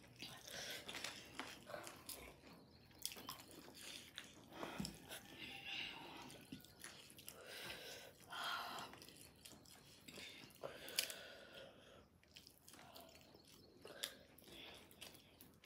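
A person quietly chewing and eating food: irregular wet mouth sounds and small clicks.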